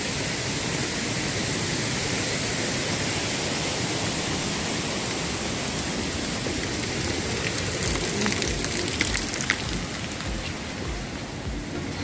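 Steady rushing of a mountain stream's white water, with a few light clicks about eight to nine seconds in; the rush thins out near the end.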